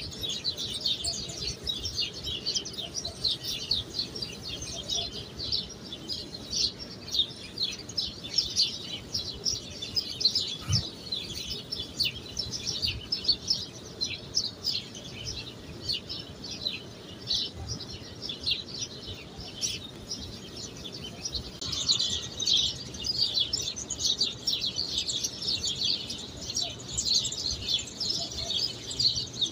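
Small birds chirping continuously, a dense chorus of short high chirps that grows busier and louder about two-thirds of the way through.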